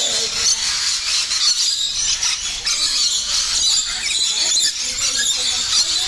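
A flock of rainbow lorikeets screeching and chattering without a break, a dense shrill din.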